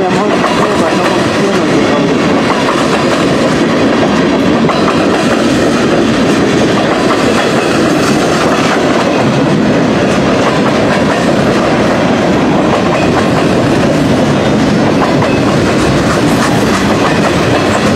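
Freight cars of a long mixed-freight manifest train rolling past on steel wheels, a loud, steady, continuous train noise.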